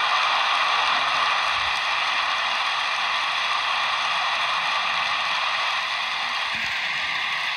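A large audience applauding: dense, even clapping in a sustained ovation, easing slightly near the end.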